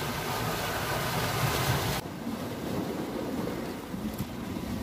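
Sea waves washing in, with wind on the microphone. The rush drops suddenly to a quieter, lower sound about two seconds in.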